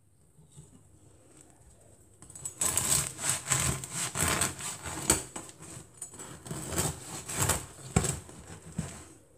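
A long bread knife saws back and forth through the crisp crust of a wholemeal sourdough ring loaf, making a run of repeated crackling, rasping strokes that start about two seconds in.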